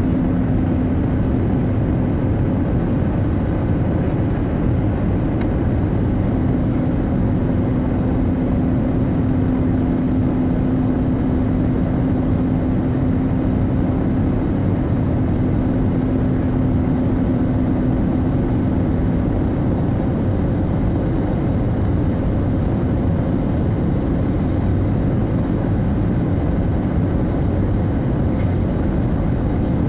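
Steady cabin noise of an Airbus A320neo on approach with flaps extended: the engines and the rush of air over the airframe as heard inside the cabin, with a steady hum that stops about two-thirds of the way through.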